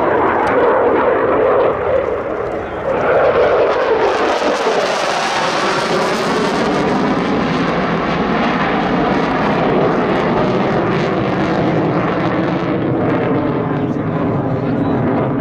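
Jet fighter aircraft flying, a loud steady rushing engine noise that grows brighter and higher for a few seconds about four seconds in, as if passing overhead, then settles back.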